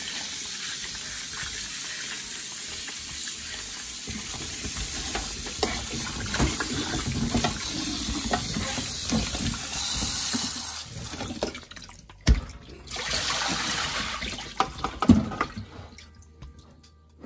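Tap water running and splashing into a stainless steel bowl of potatoes in a kitchen sink while hands scrub them clean. The water briefly stops about twelve seconds in, then dies away near the end with a few sharp knocks.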